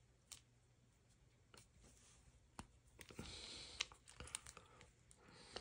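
Faint clicks and a short rubbing scrape from hand-pressing the urethane bumper into the metal body of an AR-15 carbine buffer, its roll-pin holes not yet lined up. Several sharper clicks come about four seconds in.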